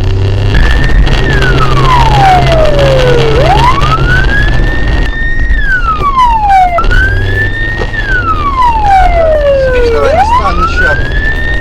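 Police car siren in a slow wail: the pitch holds high, falls steadily, then sweeps back up, repeating about every five seconds. Underneath it runs a steady low rumble.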